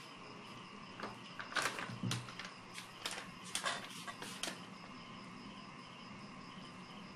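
Crickets chirring steadily, with a cluster of sharp clicks and knocks and one dull thump between about one and four and a half seconds in.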